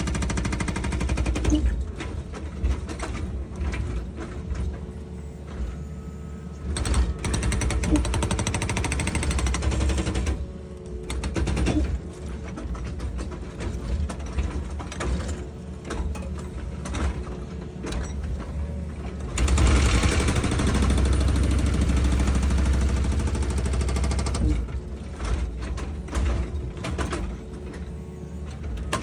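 Excavator at work: its diesel engine running steadily with irregular knocks and scraping, louder for about five seconds in the second half.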